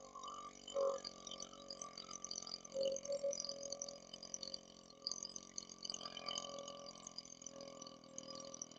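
A man burping several times, the belches brought up by chugged carbonated cherry cola. There are short burps about a second in and around three seconds, then a longer drawn-out one that slowly fades.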